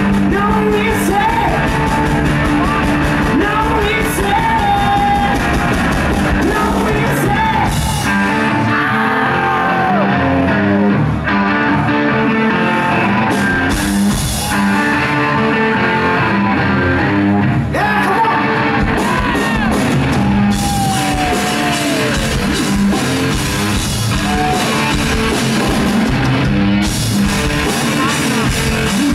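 Live rock band playing loud: electric guitar and drum kit, with a man singing and shouting into the mic at times.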